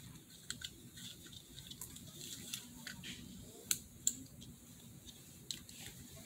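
Quiet room tone with a few faint, scattered clicks and taps at uneven intervals.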